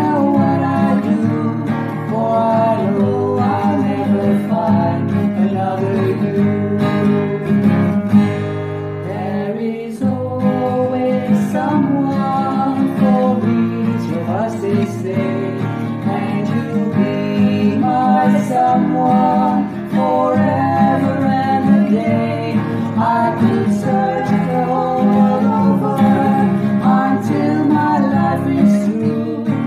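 Two women singing a song together to their own acoustic guitar accompaniment, the guitar strummed throughout, with a brief drop in loudness about ten seconds in.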